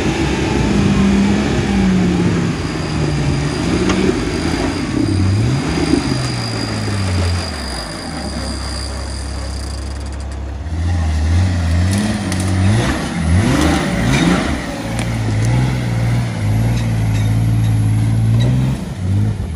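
Nissan Patrol's twin-turbo BMW M57 straight-six diesel working under load on a muddy off-road climb, its revs rising and falling over and over. It settles into steadier running about halfway through and again near the end.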